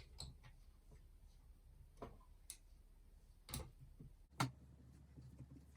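A few faint, scattered clicks and taps of a small screwdriver and plastic model parts being handled, with the sharpest click about four seconds in.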